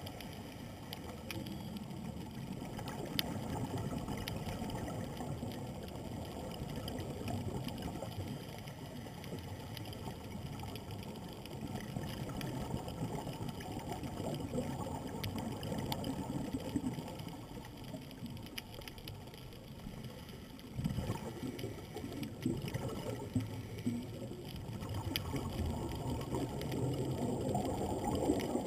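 Muffled underwater noise heard through a GoPro's waterproof housing: a scuba diver's exhaled regulator bubbles swelling and fading every few seconds, with a sharp rise about three quarters of the way in. Scattered faint clicks run through it.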